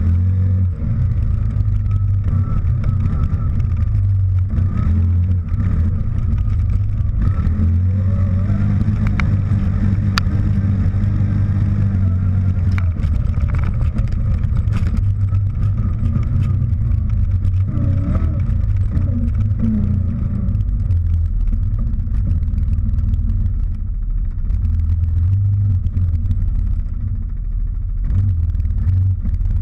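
CF Moto Gladiator X8 ATV's V-twin engine running under load as the quad drives over grass and gravel, its pitch rising and falling with the throttle.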